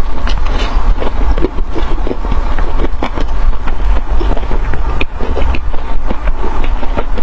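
Close-miked chewing and crunching of food, many short crisp clicks over a steady low rumble.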